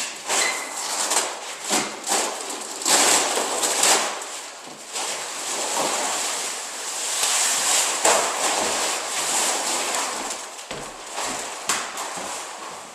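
Large sheet of vinyl flooring being moved and rolled out across a floor: a rough rustling hiss that swells and fades, with scattered knocks.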